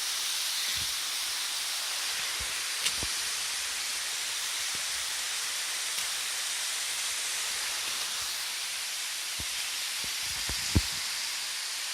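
Steady rushing hiss of flowing water, with a few soft low thumps, the loudest one near the end.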